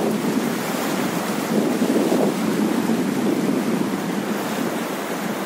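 Steady rush of a fast-flowing river, mixed with wind buffeting the phone's microphone.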